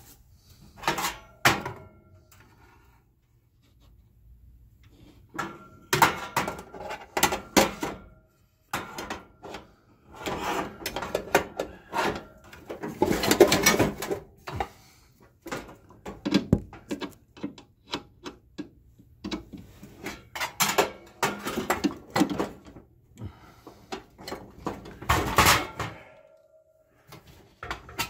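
Irregular clicks, knocks and metal clatter of hand work with a socket wrench, driving screws into an oven door hinge, with a louder run of rattling about halfway through.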